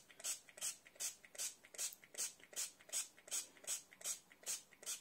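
Pump-spray bottle of low-calorie cooking oil pressed over and over, a short hiss of spray with each press, in a steady rhythm of about two and a half squirts a second.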